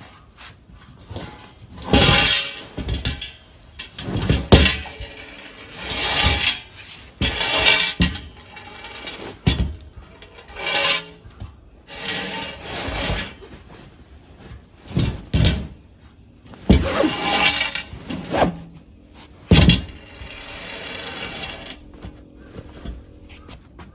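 Steel fire-pit parts clanking and scraping as they are handled, a dozen or so separate metallic knocks, some of them ringing on briefly.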